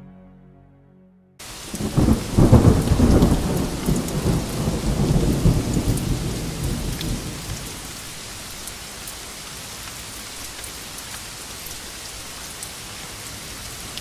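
A thunderstorm: heavy rain with a long roll of thunder that cuts in suddenly about a second and a half in, after the last of a quiet music track fades. The thunder dies away after about five seconds, leaving steady rain.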